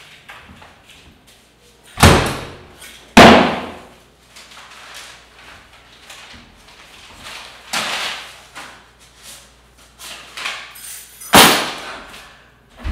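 A door slamming shut: two loud bangs about a second apart, then quieter knocks and handling noises, and another loud bang near the end.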